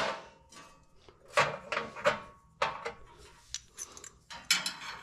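Metal parts being handled and set in place against the chassis: a run of light knocks and clanks, several spread over a few seconds, a few with a short ring.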